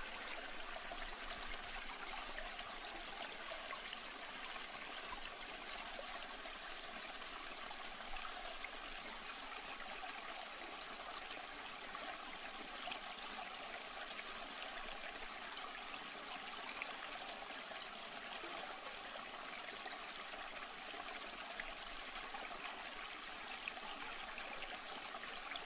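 Aquarium water trickling and splashing steadily into the tank, with a few faint ticks of droplets.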